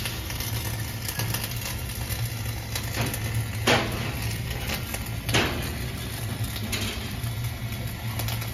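Wire-feed welding arc crackling steadily over a low hum, with a few sharp pops; the loudest two come a little over a second and a half apart near the middle.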